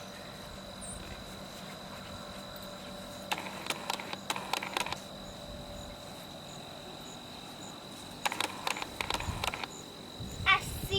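A steady, faint high-pitched tone, with two short runs of scattered clicks and taps about three and eight seconds in.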